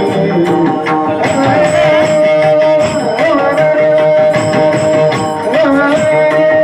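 Bhajan music: pakhawaj drumming in a steady rhythm under a long held melody note, with high ringing strikes repeating on the beat.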